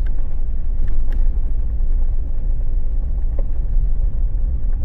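Toyota Land Cruiser driving on an off-road trail: a steady low rumble of engine and tyres, with a few faint knocks.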